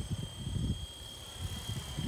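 Electric RC model helicopter in flight, its 380-size brushed motor giving a steady high whine, with wind gusting on the microphone.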